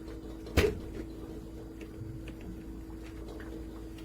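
Lid of a Hamilton Beach blender's glass jar being opened: one sharp click about half a second in, then a few faint ticks, over a low steady hum.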